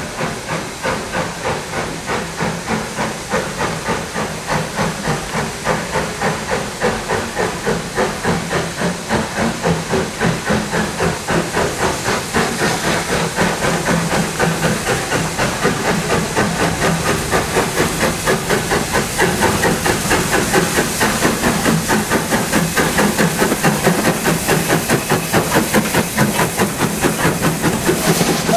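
Steam locomotive 51456 working a train, its exhaust beating at about four beats a second with steam hissing, growing steadily louder.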